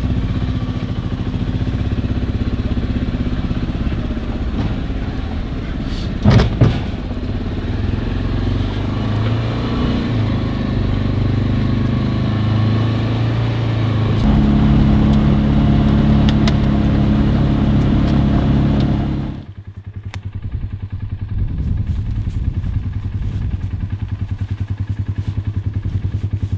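Side-by-side utility vehicle's engine running as it is driven, with two sharp knocks about six seconds in and a heavier, steadier drone from about fourteen seconds. About nineteen seconds in the engine sound cuts away abruptly, leaving a lower steady hum.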